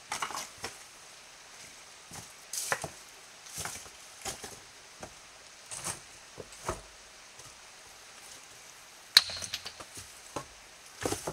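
Footsteps approaching through dry fallen leaves and over loose stone slabs, an uneven crunch about every second. One sharp crack about nine seconds in is the loudest sound.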